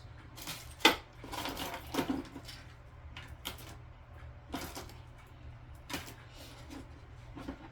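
An Allen key clicking and scraping against the tight set screw under a Delta faucet's lever: a string of short, irregular clicks and scrapes, the sharpest about a second in.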